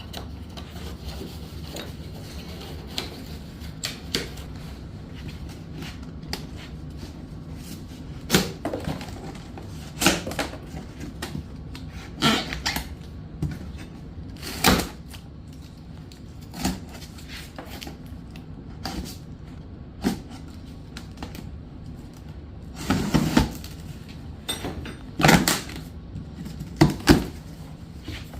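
Cardboard boxes and packing being handled and opened, with scattered knocks and clunks as parts are moved and set down, the loudest of them near the end.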